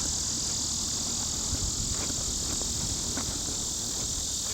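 Steady, high-pitched insect chorus droning without a break, with a few faint clicks over it.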